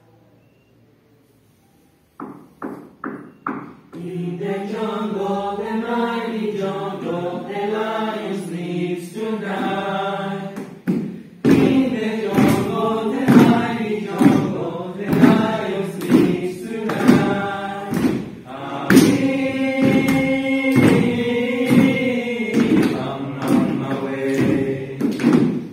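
A choir singing a cappella: after a brief hush, four short sung notes, then a flowing melody. About halfway through the singing grows fuller and is marked by a steady pulse of sharp percussive hits, about two a second.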